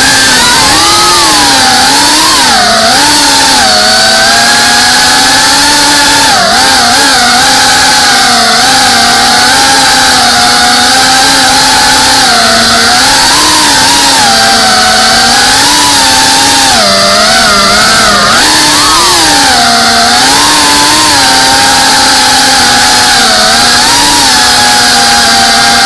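FPV quadcopter's brushless motors and propellers whining loudly, heard close up from the onboard camera. The buzzing pitch rises and falls again and again as the throttle changes, with the sharpest swings a few seconds in and again about two thirds of the way through.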